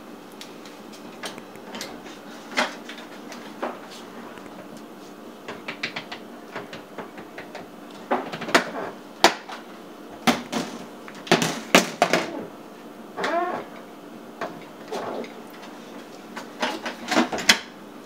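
Irregular knocks and clunks of a dishwasher being handled by a small child: its door, dish rack and control buttons. The loudest clatter comes in a cluster about eight to thirteen seconds in and again near the end.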